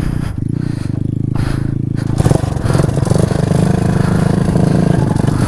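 Motorcycle engine working hard to pull the bike free where it was stuck on a rough climb, running harder and a little louder from about two seconds in.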